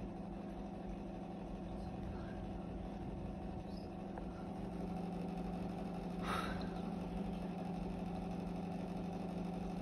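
A ceiling fan running with a steady low electrical hum. A single sharp click comes about six seconds in.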